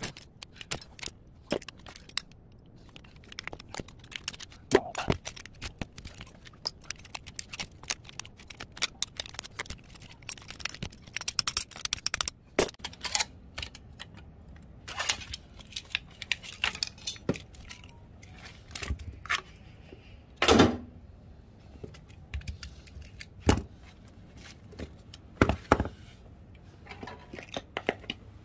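A screwdriver prying the sheet-steel cover off a small transformer: irregular metal clicks, scrapes and clinks, with a few louder knocks, the loudest about two thirds of the way through.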